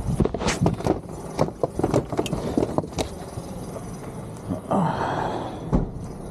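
Suitcases being handled and loaded into the back of a taxi: a run of knocks and clatters over the first three seconds, then a short rushing noise about five seconds in and one more sharp knock.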